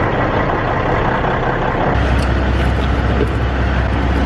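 Semi truck's diesel engine idling, a steady low rumble that grows louder about two seconds in.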